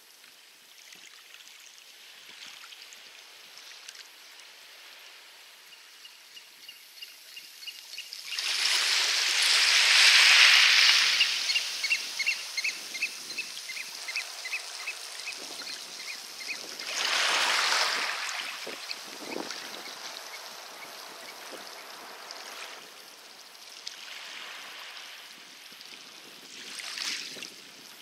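Small waves washing onto a pebble beach, several swells one after another, the biggest about ten seconds in. Each swell is followed by a run of rapid ticking.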